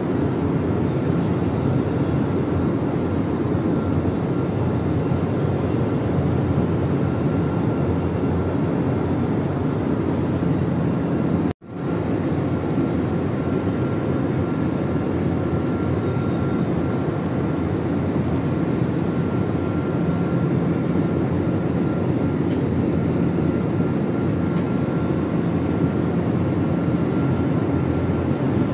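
Steady roar of a jet airliner's cabin noise heard from inside the cabin, deepest in the low range with a faint thin tone above it. It cuts out for a split second about a third of the way in.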